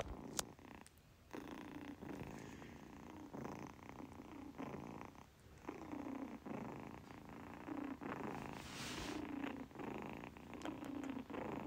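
Tabby kitten purring softly, the purr swelling and easing in a steady cycle with each breath. A single brief click comes just under half a second in.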